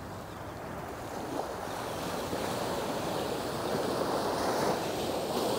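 Small waves breaking and washing up onto a sandy beach, the wash swelling louder from about two seconds in.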